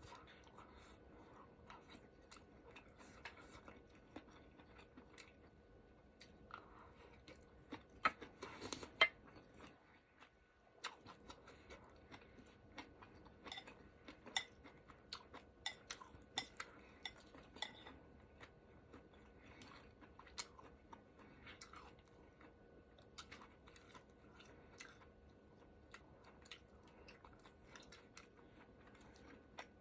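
Close-up chewing and mouth sounds of someone eating a ramen hot pot, with utensils clinking against the bowl. A burst of louder clinks comes about eight seconds in, then a short lull, then steady chewing clicks again.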